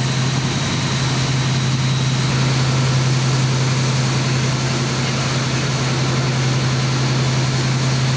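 Engine of a river push boat running steadily under way: a constant low hum with a broad rushing noise over it.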